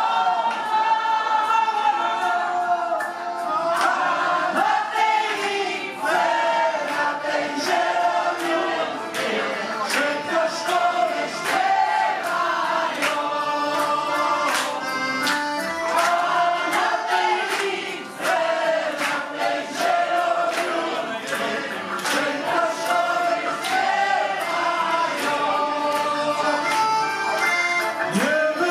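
Live folk band playing: several voices singing together over accordion, with a steady drum beat.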